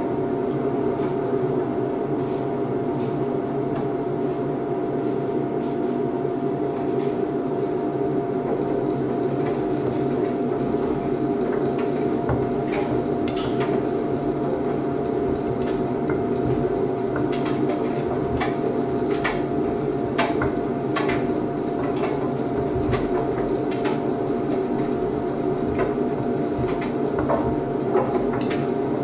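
Beko WDC7523002W washer-dryer running its drying cycle, a steady hum of the motor and fan as the drum tumbles the load. From about halfway through come scattered sharp clicks and knocks.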